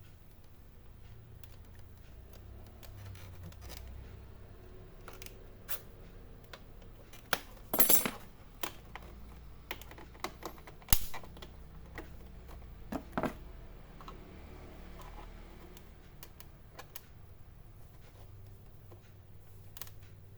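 Scattered clicks and scrapes of hand tools working on the plastic casing of an all-in-one PC being opened, with a louder cluster of strokes about eight seconds in, a sharp click about three seconds later and a couple more strokes soon after.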